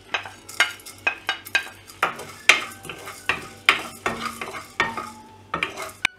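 Wooden spatula stirring and scraping coriander seeds around a dry non-stick kadai, with the seeds rattling against the pan: dry-roasting whole spices. Quick, irregular scrapes and clicks, two or three a second.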